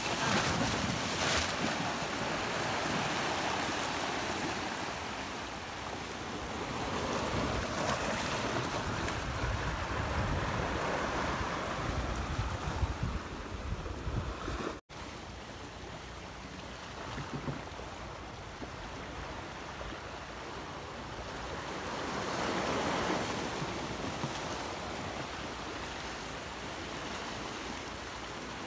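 Sea surf washing against a rocky shore, rising and falling in slow swells, with wind buffeting the microphone. The sound cuts out for an instant about halfway through.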